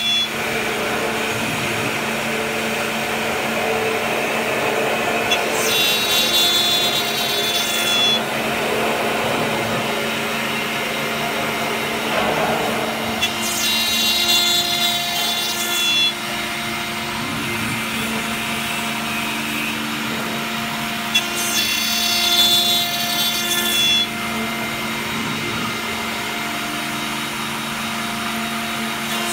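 CNC router spindle running steadily while a small cutter mills holes in a brass plate under a coolant stream. Three times, about eight seconds apart, a high-pitched whine joins in for about two seconds.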